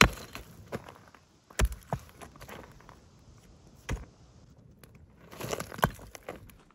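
Stones being placed around a small campfire ring: a handful of sharp knocks of rock on rock, the loudest right at the start, with scuffing on gravel near the end.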